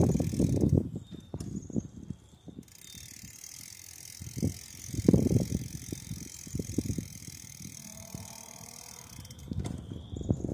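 Bicycle rolling along a paved trail, with low rumbling and knocks from the bike and wind on the microphone. These are loudest in the first second, then settle into lighter bumps. Behind them runs a steady high chirring that the rider calls cicadas.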